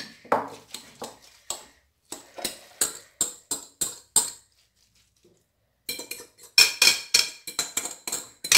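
Dishware clinking and knocking as a mixture is scraped out of a clear bowl into a nonstick frying pan. A run of quick taps is followed by a pause of over a second past the middle, then denser clattering near the end.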